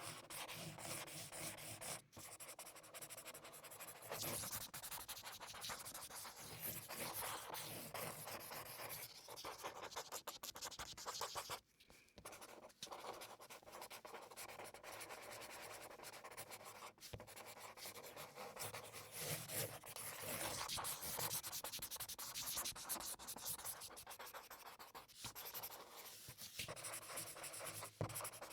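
Marker tip drawing on paper: a continuous dry squeaky scratching of quick strokes, with a short break about twelve seconds in.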